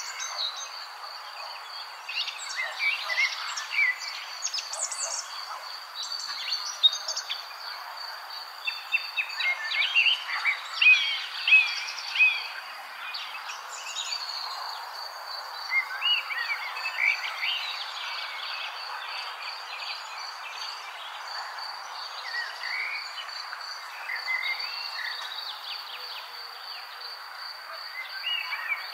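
Birds chirping over a steady, high-pitched insect trill, with the chirping busiest around the middle: an outdoor nature ambience.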